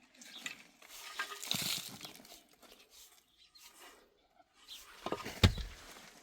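Scattered rustling and crinkling, with one sharp knock about five and a half seconds in.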